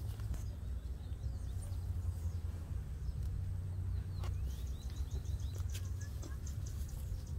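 Outdoor ambience dominated by a steady low rumble of wind on the microphone, with a quick series of high bird chirps about four to six seconds in.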